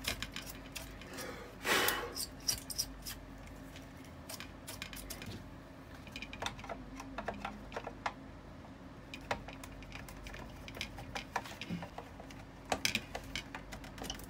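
A brush scrubbing dust off a dismantled dehumidifier's plastic parts. Scattered light ticks and taps, with a brief scrubbing swish about two seconds in.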